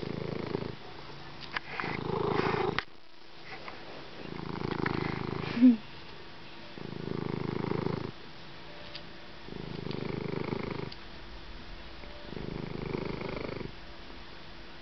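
Slow, rhythmic low rumbling close to the microphone, swelling in regular phases about every two and a half seconds like breathing. A brief sharp knock comes about five and a half seconds in.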